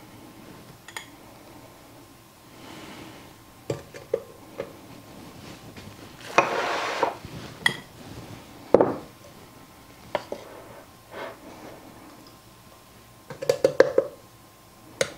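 A measuring cup knocking and scraping against a stainless steel mixing bowl as flour is scooped and tipped in, in scattered clinks, with a soft rushing sound about six seconds in. Near the end comes a quick run of clinks in which the metal bowl rings.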